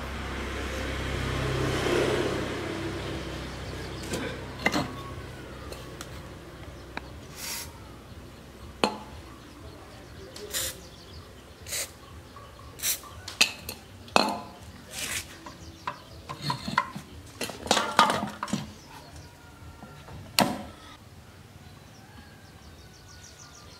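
Steel screwdriver clinking, tapping and scraping against the rusted metal end cover of an electric motor while it is pried loose: a string of sharp separate clinks. A rushing noise swells and fades in the first three seconds.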